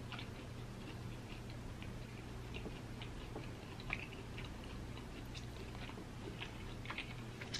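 Faint eating sounds: scattered small clicks and smacks of chewing, with fingers pulling apart a piece of steak.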